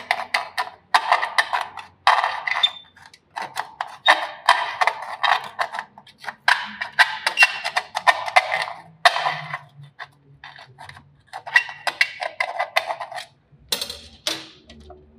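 Tip of a welding rod scratching against steel in short rasping strokes, each run lasting about a second, as hole positions are traced through a mortise lock body onto the plate beneath. A single knock sounds near the end.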